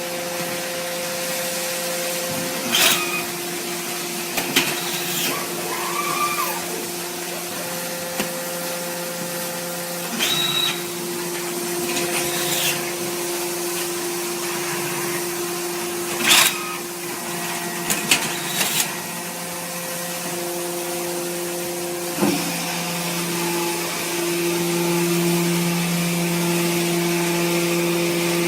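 Hydraulic cardboard baler's motor and pump running with a steady hum, broken by several sharp metallic knocks and clanks; the hum grows louder near the end.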